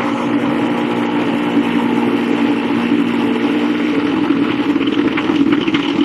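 A motor or machine running at a steady pitch, with a hissing, rough noise over it and some crackling near the end.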